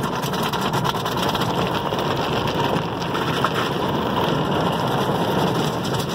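Automatic car wash heard from inside the vehicle's cabin: water spray and cloth brush strips sweeping steadily over the windshield and body.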